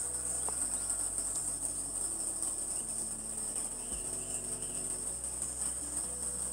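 Steady high-pitched chorus of insects, with a faint low background hum beneath it.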